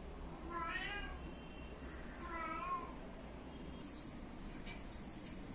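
A cat meowing twice, each meow about half a second long, with a couple of light knocks near the end.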